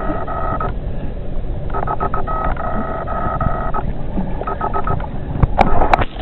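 Fishing reel drag buzzing as a big catfish takes line, in three runs, the longest about two seconds. Two sharp clicks come near the end.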